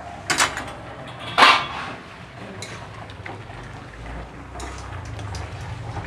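Steel pot lid clanking twice as it is set down, then a metal spatula scraping and stirring in an aluminium kadai of simmering curry, with small clicks. A low steady hum grows underneath near the end.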